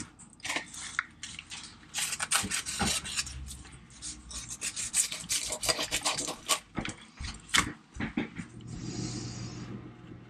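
Fillet knife cutting through a northern snakehead's skin and flesh, scraping against a plastic cutting board in many short strokes, easing off near the end into soft rustling as the fillet is laid down.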